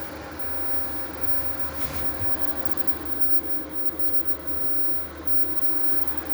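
Steady low machine hum from household appliances running, with a newly started washing machine at the start of its cycle. A faint click about two seconds in.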